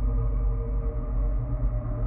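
Ghost moan sound effect: a low, continuous drone with several steady held tones layered over a deep rumble.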